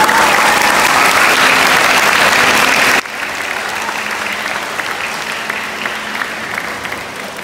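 Audience applauding: loud, dense clapping that drops suddenly to quieter clapping about three seconds in.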